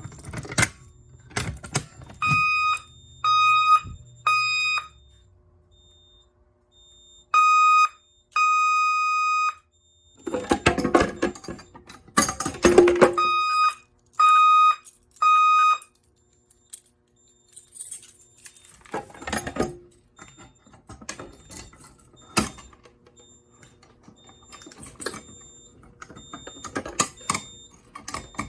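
Fire alarm voice-evacuation speakers sounding a steady tone in short on-off pulses, mostly in groups of three: the temporal code-3 evacuation pattern. Loud bursts of rustling and knocking noise come in between, and the tone pulses stop a little past halfway.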